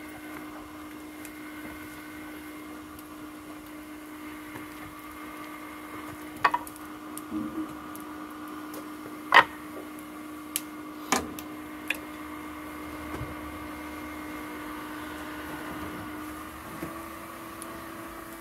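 A steady mechanical hum of a small running motor, with several sharp metallic knocks and clanks of boots and a battery against the steel track and body of a Caterpillar 983B track loader. The loudest knock comes about nine seconds in.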